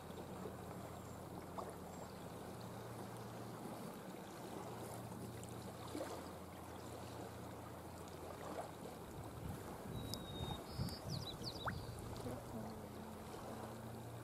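Shallow seawater lapping softly over a stony shore, under a faint, steady low hum. A few small clicks come near the end.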